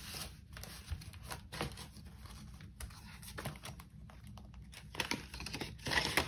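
Paper banknotes and cash-binder envelopes rustling and crinkling as cash is handled and sorted: a string of short, irregular crinkles and soft taps.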